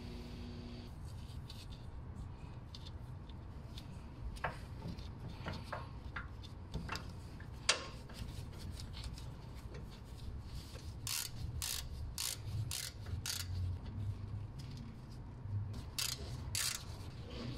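A ratchet wrench tightening a brake caliper bolt, giving runs of sharp, evenly spaced ratchet clicks about two-thirds of the way through and again near the end. Before that come scattered metal clicks and taps as the bolt is handled and threaded into the caliper.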